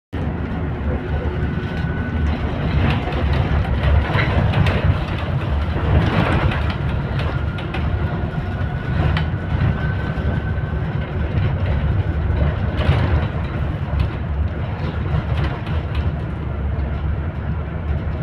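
Train in motion: a steady loud rumble with a faint thin whine held through it.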